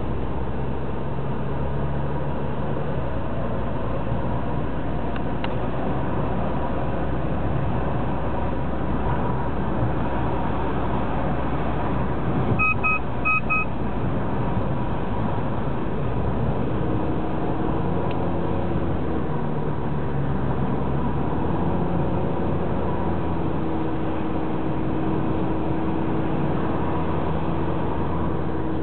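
Steady engine and road noise inside a moving car's cabin, the engine hum shifting in pitch a few times in the second half. About halfway through, four short high electronic beeps sound in two quick pairs.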